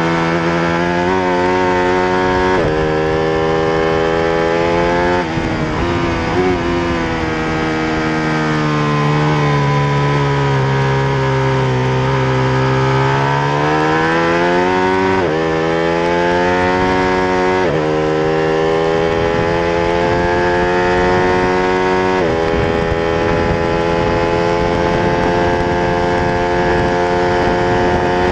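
Ducati Panigale 1199R's Superquadro V-twin heard onboard at racing speed, over wind and road noise. The engine note sinks slowly through the middle, then climbs again, with several sudden steps in pitch at gear changes.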